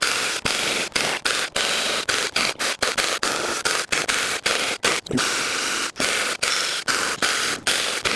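Battery-powered 6-inch mini chainsaw cutting through a log, the chain rasping steadily through the wood, broken by many brief dropouts a few times a second.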